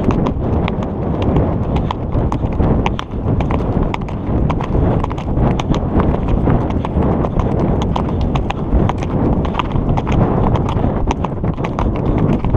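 Fast hoofbeats of horses cantering on a dirt track, a quick run of sharp thuds over a dense, steady rumble of wind buffeting the microphone.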